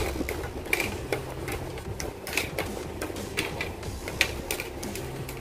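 Hobby side cutters snipping plastic model kit parts off the sprue, with the grey plastic runner being handled: a run of sharp, irregular clicks and snaps.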